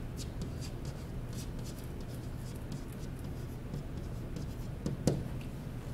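Faint scratching and tapping of a stylus writing on a touchscreen, over a steady low hum, with one sharper click about five seconds in.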